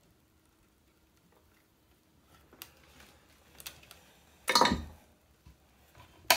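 Faint clicks and taps of hands handling parts and tools on a wooden workbench. About four and a half seconds in comes one louder knock with a falling tone, and a sharp click follows near the end.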